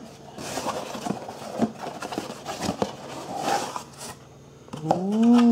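Packaging rustling and crinkling with small clicks and knocks for about four seconds as a timing belt kit is unpacked. Near the end a man says a drawn-out "ooh".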